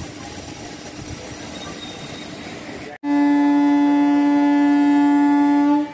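Rumble of a moving train, then after a momentary break a train horn sounds one long, loud, steady blast lasting nearly three seconds and cutting off sharply just before the end.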